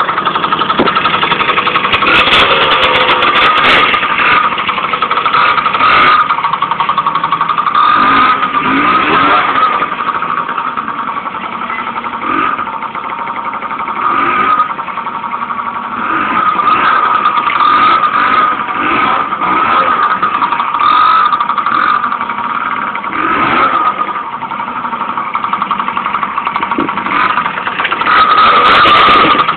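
Small mini motorbike engine running as it is ridden, a high, buzzy note that rises and falls with the throttle.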